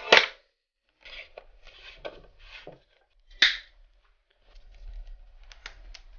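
Mountain bike gear and remote-lockout cables and housing being cut to length and fitted by hand. There are sharp snips or clicks, the loudest right at the start and another about three and a half seconds in, with rustling and rubbing between them.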